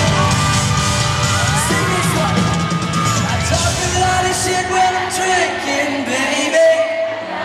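A pop-rock band playing live in an arena, with a singer's voice on the microphone over the band and fans screaming and whooping throughout.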